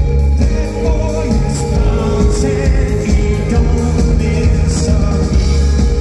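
Live rock band playing: a male singer sings over electric guitar with strong, heavy bass.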